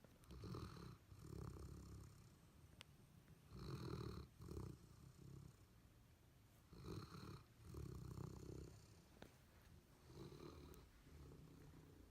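A sleeping retriever dog snoring quietly: about four slow breaths, roughly three seconds apart, each snore coming in two parts.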